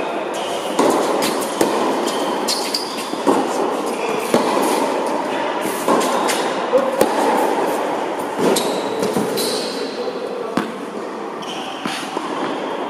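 Tennis balls struck by racquets in a baseline rally: sharp hits every second or so, with a few short high squeaks of shoes on the hard court, over a steady rushing hall noise.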